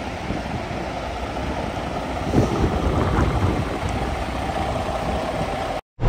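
Kenworth W900L semi truck's Cummins X15 diesel running, a steady rumble heard from inside the cab. The sound cuts out suddenly for a moment near the end.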